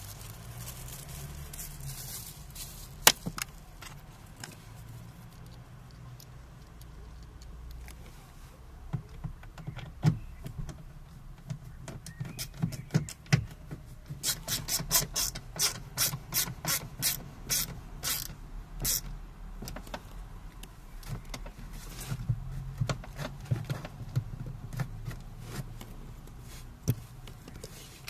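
Clicks and knocks of hand work on a Renault Clio 1 door trim panel being refitted: one loud sharp click about three seconds in, scattered clicks, then a run of sharp regular clicks, about two or three a second for some five seconds, in the middle.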